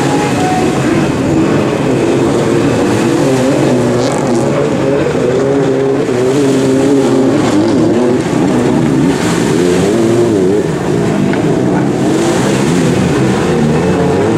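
Several racing jet skis running at once, their engines' pitch wavering up and down continuously as the throttles change.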